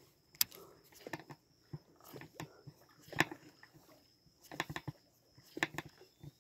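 Surface popper lure being twitched and retrieved across calm water, giving short, irregular pops and splashes about once a second with brief quiet gaps between.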